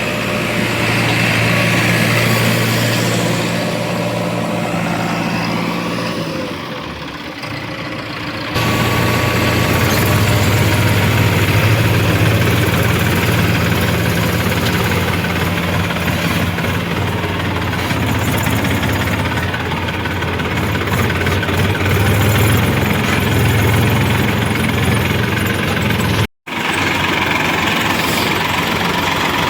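Heavy diesel machinery engine running steadily under a low hum, with an abrupt change about eight seconds in and a brief cut-out near the end.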